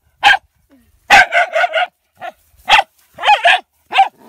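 Dog barking repeatedly at a snake in a rice field, with a quick run of several barks about a second in.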